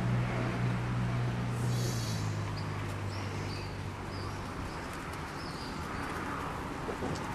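Outdoor background: a steady low hum that eases after about two seconds, with a brief high call and a few short high chirps.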